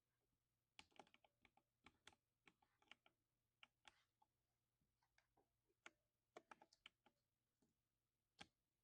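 Lubed 60% mechanical keyboard being typed on, giving faint thocking keystrokes in irregular clusters. The typing starts just under a second in and runs until about 7 s, with a single stroke near the end.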